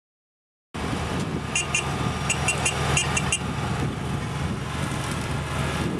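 Heavy track-laying equipment's diesel engine running steadily, starting abruptly just under a second in, with a quick run of ringing metallic clinks from about a second and a half to three and a half seconds in, metal striking metal as the crew works the rails.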